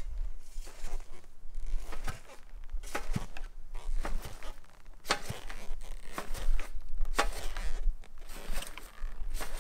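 Scattered light knocks and rustling over a low rumble: the heavy plated vacuum shoes being moved and walked in on grass.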